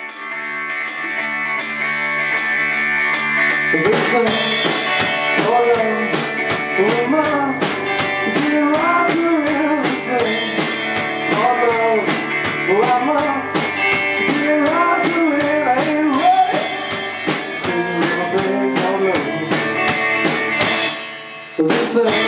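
A rock band playing live in a small room: electric guitars and a Pearl drum kit, with a steady cymbal beat from the start and the full band coming in about four seconds in. The playing drops out briefly near the end and then starts again.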